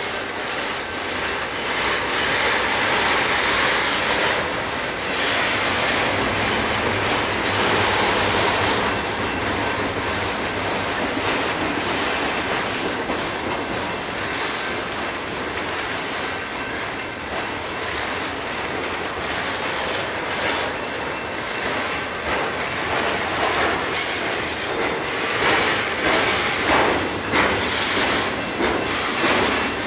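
Double-stack container well cars of a freight train rolling past close by, a steady rumble of steel wheels on rail with clicking over the rail joints and patches of high-pitched wheel squeal.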